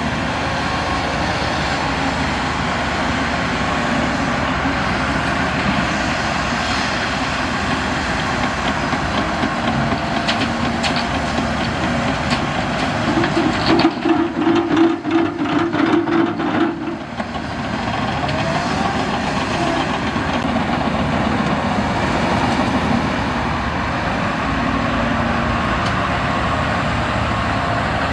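Heavy diesel earthmoving machinery running on a worksite: excavators, a dozer and dump trucks. About halfway through, a few seconds of louder, rapid rattling over a steady whine.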